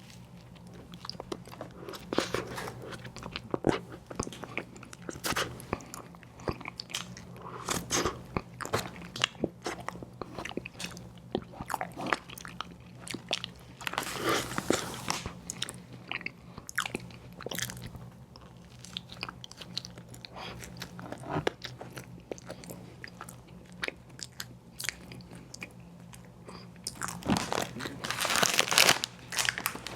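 Close-miked eating of an ice cream sandwich: repeated bites and crunchy chewing with many small mouth clicks, louder near the end.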